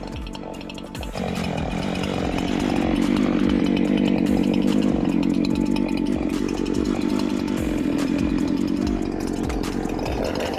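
Gas chainsaw running at full throttle, cutting through a large oak log; it rises about a second in as the saw bites into the wood and then holds steady.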